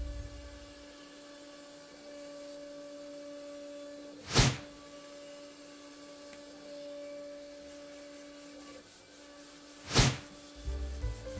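Steady motor whine of a CNC router spindle running, holding one pitch. Two short whooshes cut across it, about four and ten seconds in.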